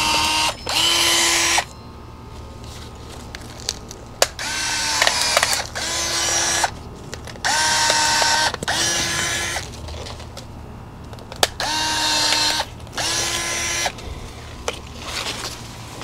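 Cordless electric pruning shears cutting branches: four cuts, each a pair of short motor runs with a whine that rises as it starts, and a few sharp snaps between.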